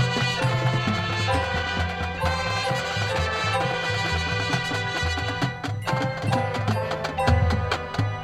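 High school marching band playing live: wind instruments over drums, with a busy, quickly changing low bass line.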